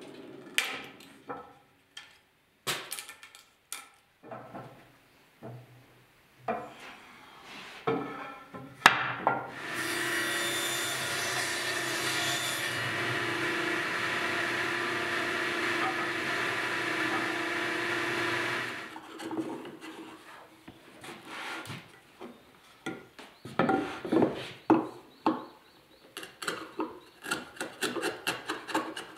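Table saw running and cutting a black cherry board for about ten seconds: a steady, loud sound holding one tone. Before it, scattered knocks of the board being handled on the saw table; near the end, a quick run of sharp taps as a chisel cuts out a notch in cherry.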